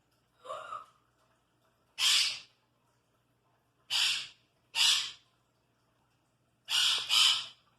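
Parrot giving short, harsh, breathy squawks, six in all: the first faint, the last two back to back.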